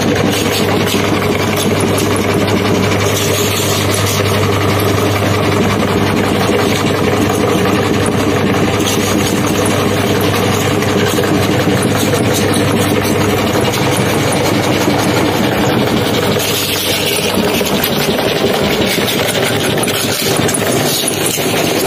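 Belt-driven electric meat grinder running steadily with a loud low hum while it grinds crunchy ring chips that are pushed down into its hopper.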